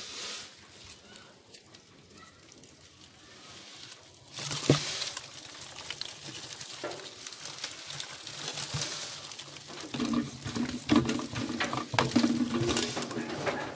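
Plastic cricket bins and lids being handled: rustling and clicking, with one sharp knock about five seconds in. A low steady pitched sound joins from about ten seconds in.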